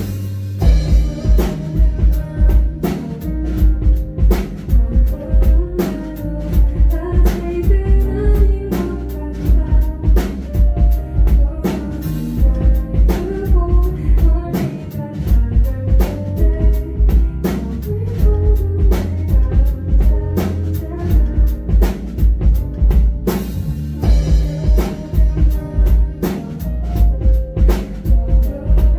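Live band music: a drum kit playing a steady beat with bass and other instruments, and a woman singing into a microphone.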